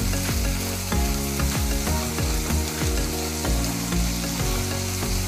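Soaked moong dal sizzling in hot oil in a nonstick pan while it is stirred with a plastic spatula, with background music underneath.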